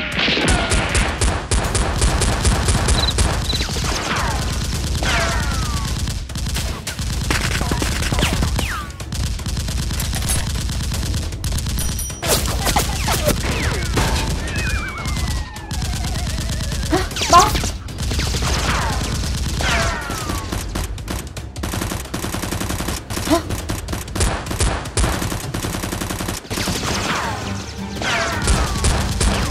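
Rapid, near-continuous gunfire sound effects, bursts of automatic fire with falling whistling ricochets cutting through, laid over a Nerf blaster battle.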